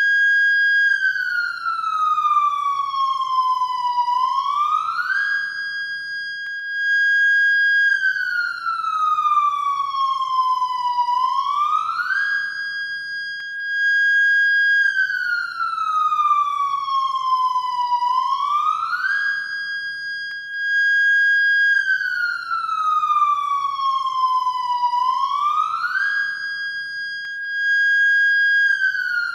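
New-type electronic siren of a Japanese police motorcycle sounding in a repeating cycle: it holds a high tone for about two seconds, slides down slowly for about three seconds, then climbs back up quickly in about a second, repeating about every seven seconds.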